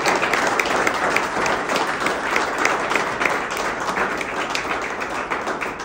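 A roomful of people applauding, with many hand claps overlapping, easing off near the end.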